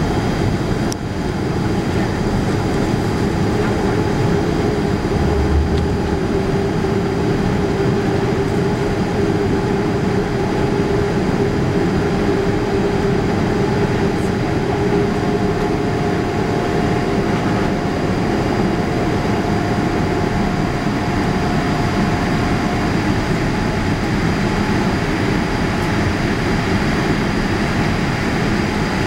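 Steady roar of a Boeing 787-8's jet engines and airflow heard inside the cabin as the airliner climbs after takeoff, with a faint hum running through it that gives way to a higher hum about halfway through.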